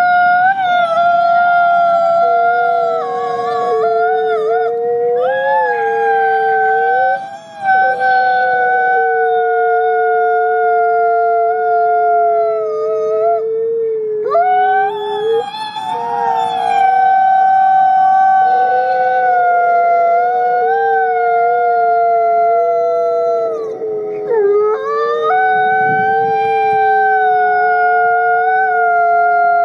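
Gray wolf howling in long, drawn-out notes, with a second, lower howl running at the same time at a different pitch. The howls waver and glide and break off briefly about 7, 14 and 24 seconds in before starting again.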